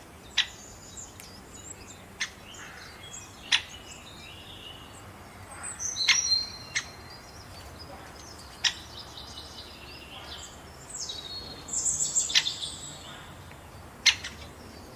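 Birds chirping and whistling, louder in two stretches around the middle and near the end. About eight sharp clicks come a second or more apart.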